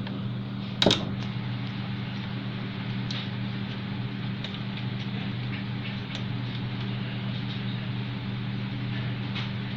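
A steady low hum, with one loud sharp click about a second in and a few faint clicks after it.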